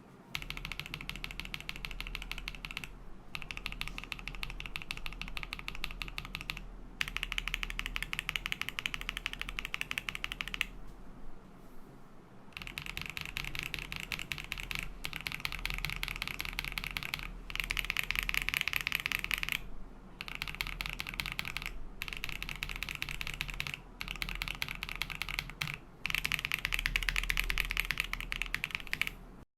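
Mechanical keyboard with KTT Hyacinth linear switches (a KBD67 Lite) typed on quickly: dense runs of key clacks in bursts of a few seconds, broken by short pauses.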